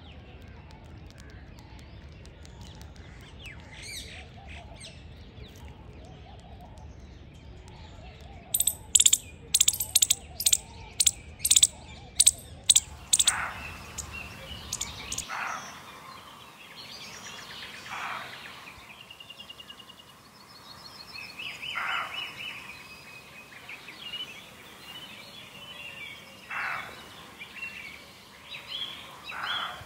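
Birds calling outdoors: a run of about ten loud, sharp notes, about two a second. Then separate, downward-sweeping calls repeat every few seconds over fainter, higher birdsong.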